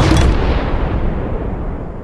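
A loud explosion or artillery blast, its rumble fading away steadily over two seconds with the high end dying first.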